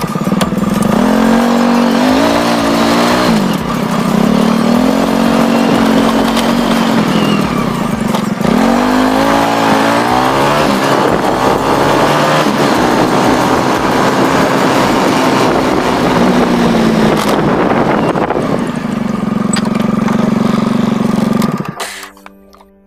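Honda automatic scooter engine running while riding, its pitch rising as the throttle opens, holding steady, then falling away, several times over. The sound stops abruptly near the end.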